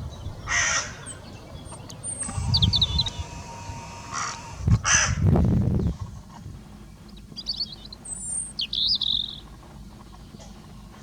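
Crows cawing: three calls in the first six seconds, the last one the longest. Short high chirps from small birds come in between and after.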